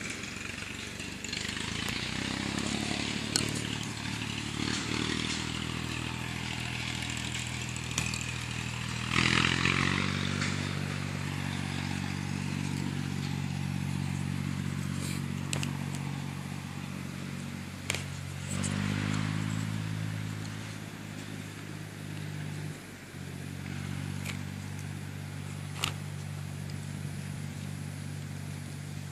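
An engine running at a low idle, its pitch stepping up or down a few times, with occasional sharp clicks.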